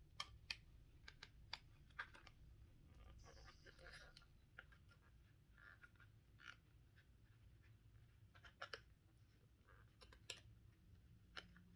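Faint handling noise: scattered small clicks and, about three seconds in, a brief light scraping as thin plastic strips are fed through a rubber pistol grip sleeve.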